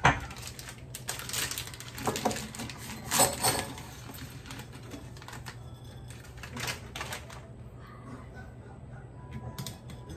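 Dry spaghetti sticks rattling and clicking against a tall glass storage jar as they are tipped in. The clicks come in quick clusters over the first few seconds, then thin out, with a few more as the lid is fitted back on near the end.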